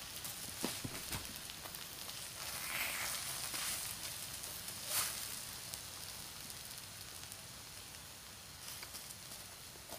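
Takoyaki batter sizzling on an electric takoyaki plate: a steady soft hiss with a few small clicks, the loudest about five seconds in, growing a little quieter in the second half.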